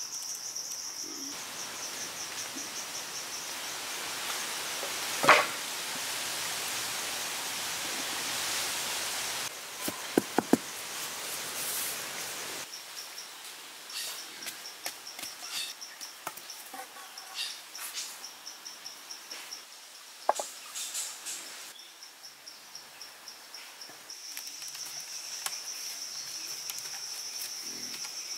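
Forest ambience of insects trilling in a high, evenly pulsing buzz over a steady hiss. A single sharp knock about five seconds in, three quick knocks about ten seconds in, and lighter taps and ticks later on.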